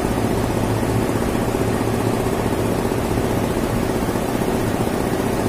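Display freezer's hermetic compressor running steadily with a low hum while refrigerant is charged into it through the gauge manifold.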